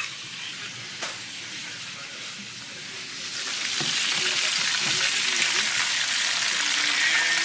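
Breaded chicken pieces frying in shallow hot oil in a pan, a steady sizzle that grows louder about halfway through. A single sharp click about a second in.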